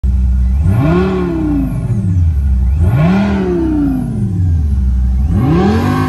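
Revving car-engine sound heard inside a Renault Clio 4 standing still: the pitch climbs and falls back three times, about every two and a half seconds.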